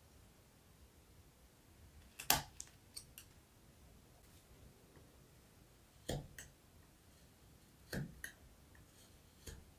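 Hand carving gouge cutting into a wooden spoon, each cut a short crisp snap as a chip breaks away. The snaps come in four bunches of one to three a few seconds apart, the loudest a little over two seconds in.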